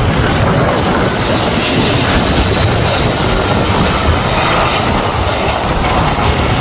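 Airliner's jet engines running with a steady, loud rushing noise as it makes its landing in strong, gusty wind.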